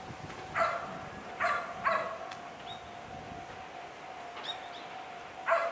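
A dog barking: several short barks, three close together in the first two seconds and two more near the end, over a faint steady tone.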